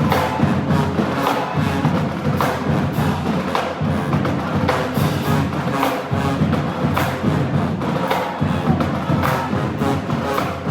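Marching band playing live, with sharp drum strikes keeping the beat over full band sound.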